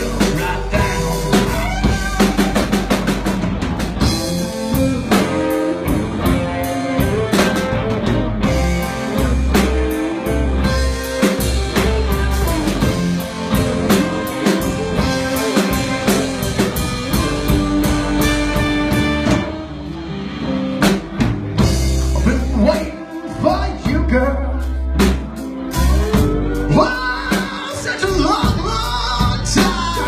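Live blues-rock band playing: electric guitars over a drum kit.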